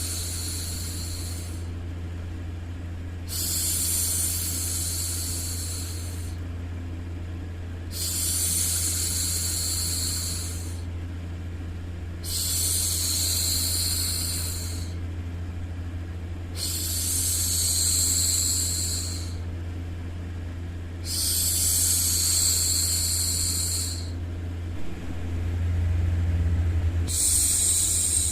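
A woman's voice making long, repeated "shhh" shushing sounds to soothe a baby. Each shush lasts about three seconds, with a short pause between them, over a steady low hum.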